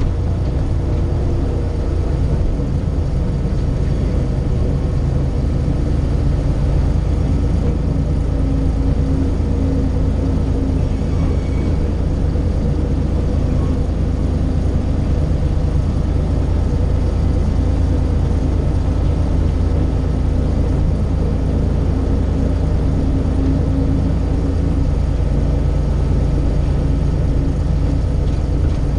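Diesel locomotive engine running steadily while the locomotive rolls along the track, heard close beside its exhaust stack.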